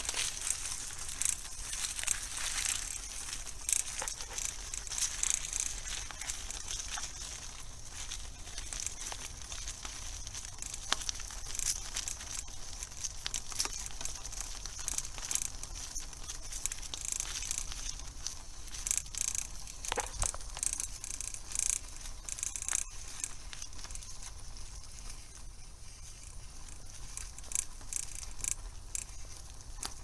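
Bicycle tyres rolling over dry fallen leaves and gravel: a steady crackling crunch made of many small clicks.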